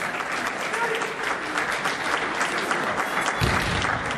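Spectators applauding a point just awarded in a kendo match, with voices under the clapping and a single low thud about three and a half seconds in.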